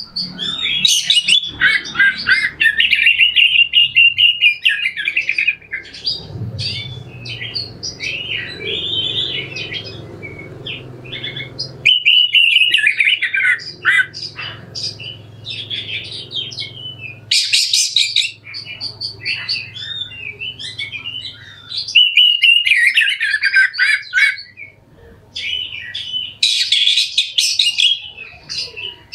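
Oriental magpie-robin (kacer) singing a harsh, varied song of quick whistles, chirps and scratchy chattering notes, in loud bursts separated by short pauses.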